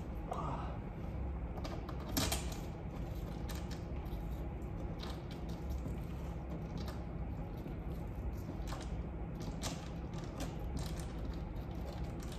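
Scattered light clicks and taps of screws being fitted through an aftermarket front splitter into the underside of the front bumper, with a sharper click about two seconds in, over a steady low hum.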